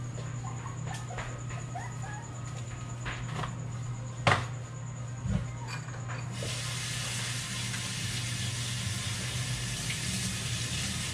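A few clicks and knocks of kitchen things being handled, the loudest about four seconds in. About six and a half seconds in, a water tap is turned on and runs steadily into a sink.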